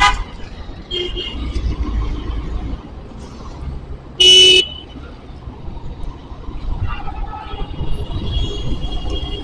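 Busy road traffic with vehicle horns honking over a low engine rumble: a short toot at the start, fainter horns here and there, and one loud horn blast lasting about half a second about four seconds in.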